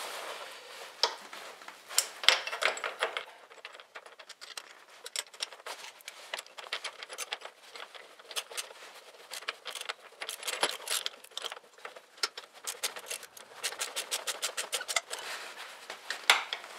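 Small metal parts and hand tools clinking and clicking as an idler wheel bolt and spacer are fitted into a snowmobile's rear suspension rail, with a fast run of clicks near the end.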